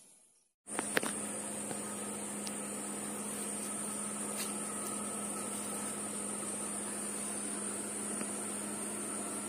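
Steady hum with a constant low tone and a high hiss, starting abruptly under a second in after a brief silence, with a single click just after it begins.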